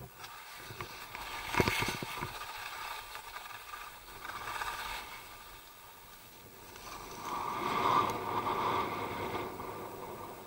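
Skis sliding and carving through soft snow: a hiss of snow that swells with each turn, three times, with a few sharp clicks during the first turn.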